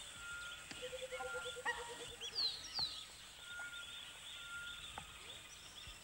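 Faint mixed bird calls over a light hiss: a quick run of about ten low notes about a second in, short whistled notes repeated at intervals, and two high downward-sliding calls near the middle.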